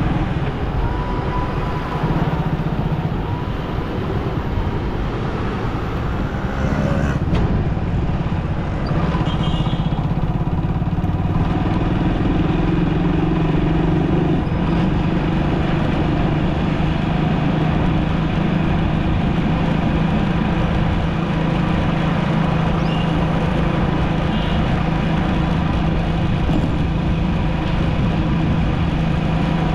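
City road traffic heard during a drive: the steady running and road noise of the car and the vehicles around it, with a low engine hum that grows steadier about a third of the way in.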